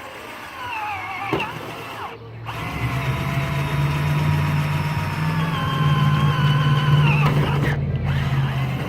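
Handheld power drill run in three bursts, the longest about five seconds, its motor whine dipping and recovering in pitch as the bit works under load.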